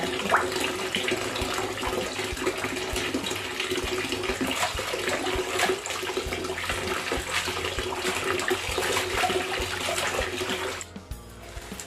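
Kitchen tap running into a plastic basin in a steel sink while leafy greens are swished and rinsed in the water, with small splashes and clicks. The water noise drops away near the end.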